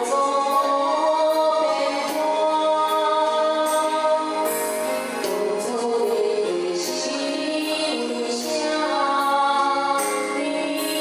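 A woman singing a Taiwanese-language enka ballad into a handheld microphone over a karaoke backing track with a steady beat.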